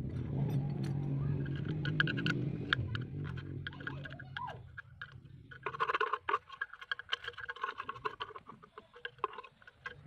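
A metal tool scraping carbon off the inside of a Tanaka brush cutter's muffler, in rapid, irregular scratchy strokes from about six seconds in. Before that there is a low steady hum with scattered clicks as the muffler is handled.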